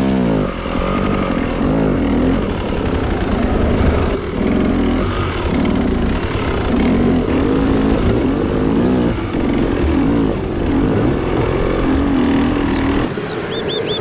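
Hard enduro dirt bike engine revving again and again, its pitch rising and falling with each burst of throttle. Near the end the engine drops away and birds chirp.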